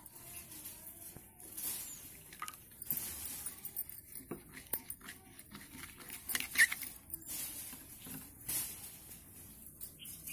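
Steel spoon stirring a thick wet slate-powder paste in glass bowls, with irregular clinks and scrapes of the spoon against the glass; the sharpest clink comes a little past the middle.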